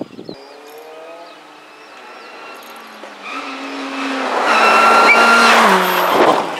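Honda Civic FN2 rally car's 2.0-litre four-cylinder engine revving hard as it accelerates toward the listener and passes close by. The revs step once about three seconds in, the sound grows loudest a second or so later, and near the end the pitch falls as the engine comes off the throttle.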